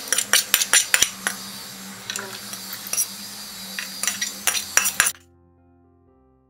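Steel spoon scraping and clinking against a stainless-steel pan as fried chutney ingredients are tipped into a steel mixer-grinder jar: many sharp metal clinks for about five seconds, then they stop abruptly. Faint background music follows.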